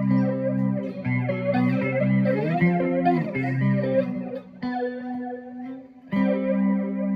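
Electric guitar played through an effects pedal chain into a FoxGear Plex55 pedal amp, with a flanger engaged. Chords are strummed and left to ring; they are struck again about a second in and once more after about six seconds.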